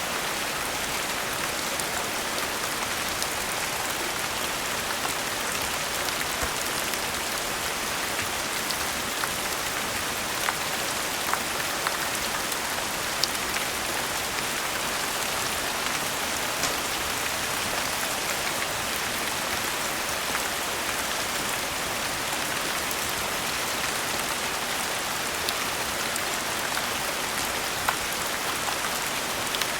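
Steady rain falling on a surface: a dense, even patter, with scattered sharp ticks and pops now and then.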